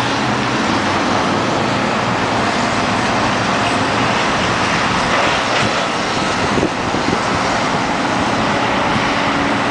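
Heavy diesel demolition machinery running steadily at a building teardown, a dense, loud noise with a few faint knocks about halfway through.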